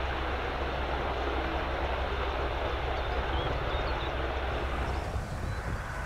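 Royal Navy Merlin helicopter, a three-engine AW101, running steadily with a low hum under a broad whoosh of engine and rotor noise. About five seconds in, the low hum falls away.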